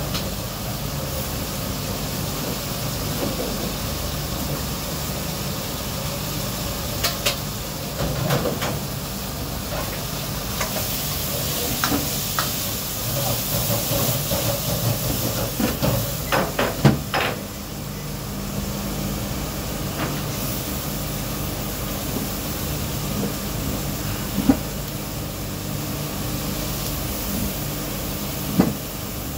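Restaurant kitchen background: a steady hiss and low hum of running equipment, broken by scattered clatters and knocks, with a quick run of them around the middle and two sharp knocks near the end.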